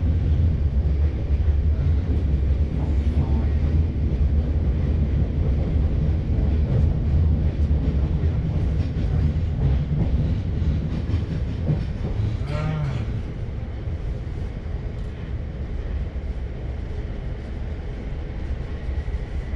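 Steady rumble of a suburban electric train running, heard from inside the carriage, easing off a little about two-thirds of the way through.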